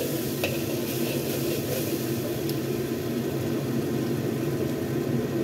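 A steady low hum with a hiss over it, under the stirring of a sauce in a wok. A metal spatula scrapes the wok and taps it lightly about half a second in and again near the middle.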